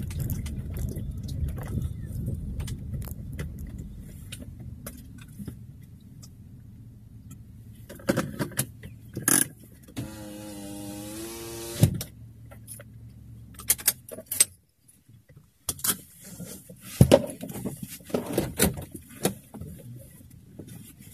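Inside a car: low rumble of the car moving slowly over rough dirt, fading as it comes to a stop, with a short rising whine about halfway. The running hum cuts off about two-thirds through, followed by scattered clicks, knocks and rattles in the cabin.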